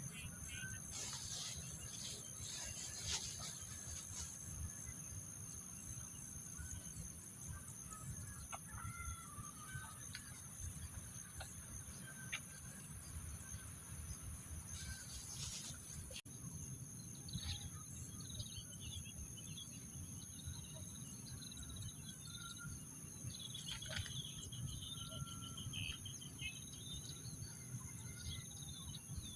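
Rice-field ambience: a steady high insect drone with scattered bird chirps and, a little after the middle, a short bird trill, over a faint low rumble.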